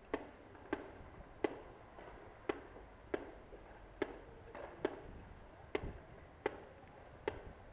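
Paintball markers firing about ten single shots, each a sharp pop, roughly one a second and unevenly spaced.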